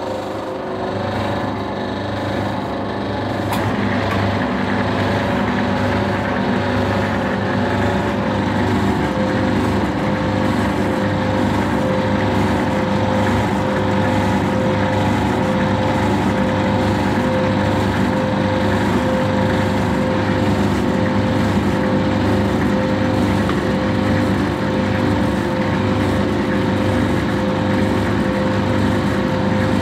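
Fortis metal lathe running just after being switched on: a steady mechanical hum from its motor and gearing, with a low regular pulsing. It comes up to speed over the first few seconds and then runs evenly.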